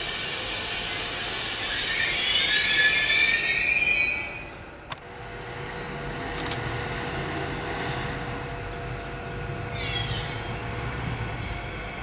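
Red double-deck regional train rolling slowly into the station with a loud, high metallic squeal from its wheels that slides down in pitch and fades about four seconds in. A sharp click follows, then a low rumble with a steady hum, and a short falling squeal comes again about ten seconds in.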